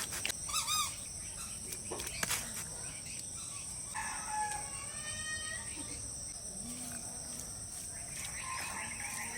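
A rooster crows once, a call of nearly two seconds about four seconds in, over a steady high buzz of insects.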